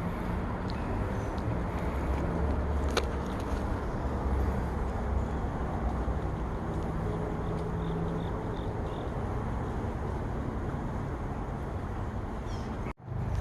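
Steady low rumble of city traffic, cutting out suddenly for a moment near the end.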